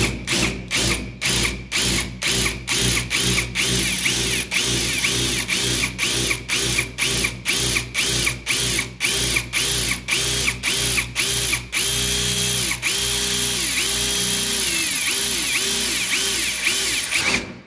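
Cordless drill boring into a brass lock cylinder, running in a steady pulsing rhythm about twice a second as the bit catches and frees. The drill stops abruptly near the end. The catching is the bit binding on the cylinder's spring-loaded pins as they drop into the hole.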